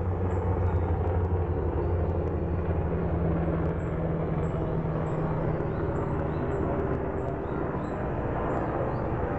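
Helicopter lingering nearby out of sight: a steady low drone of rotor and engine, its deep throb easing a little after about three seconds.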